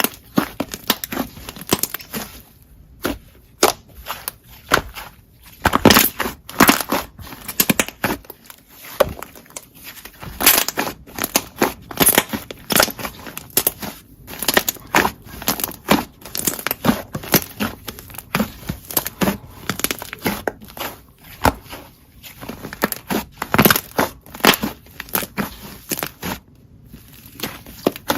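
Slime being squeezed, poked and pressed by hand, making a dense, continuous stream of crackling, crunching clicks.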